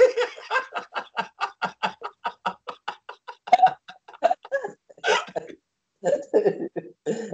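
Two men laughing heartily: a fast run of short ha-ha pulses, about five or six a second, for the first three seconds, then looser, louder bursts of laughter with short breaths between.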